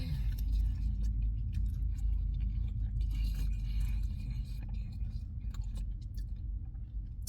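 A person chewing a soft pretzel topped with pizza sauce and cheese, with many small irregular crunching and clicking sounds, over a steady low rumble.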